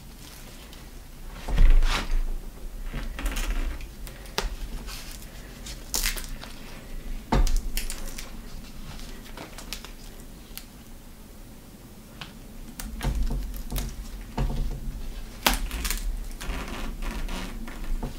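Handlebar tape being wrapped tightly around a road bike's drop bar: irregular rustling and crackling of the tape and its peeled paper backing strip, with scattered clicks and a few low handling thumps, the loudest about two seconds in.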